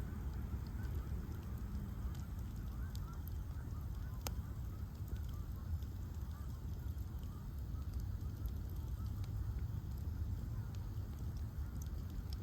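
Bonfire of ash logs burning with a steady low rumble, scattered crackles and one sharp pop about four seconds in. Faint short squeaky calls sound over the first few seconds.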